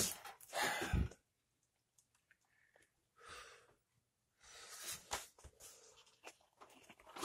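Quiet handling noises: a sharp click at the start, a short rustle about half a second in, then a few soft breathy rustles and light clicks. The saw is not running.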